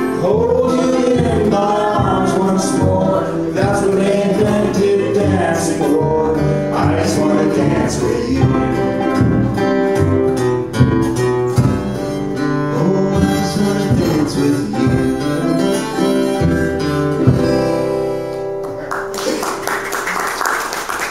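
A small acoustic string band playing a country song: strummed acoustic guitar, ukulele, fiddle and upright bass, with men singing. The song ends about nineteen seconds in and applause follows.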